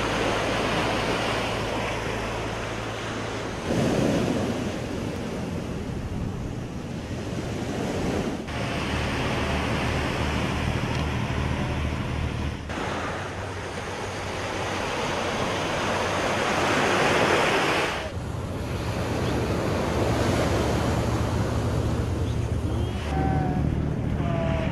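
Small waves washing onto a sandy beach, with wind rumbling on the microphone. The surf sound changes abruptly every few seconds as the footage cuts between shots.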